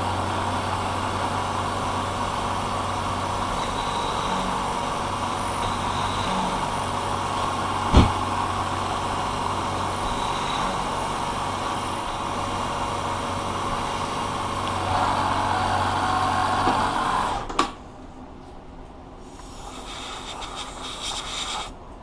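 Milling machine spindle running as an end mill plunge-roughs the cutouts in a brass hand wheel, with one sharp click about a third of the way through. About three-quarters of the way through the machine stops abruptly, and a fainter hiss follows.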